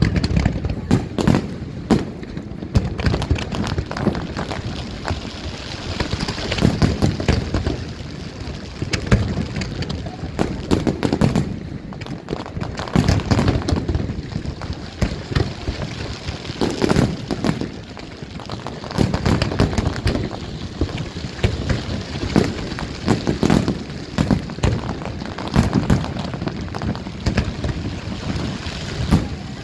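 Aerial fireworks display going off without a pause: a dense barrage of booming shell bursts mixed with rapid crackling reports.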